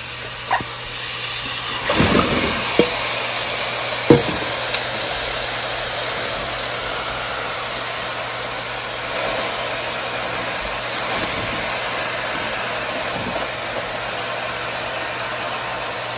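Seasoned pork and vegetables sizzling in a pan of browned brown sugar, the first stage of a Caribbean stew. The sizzle swells about two seconds in as the meat lands and then holds steady, with a few knocks of the wooden spatula and bowl against the pan in the first four seconds.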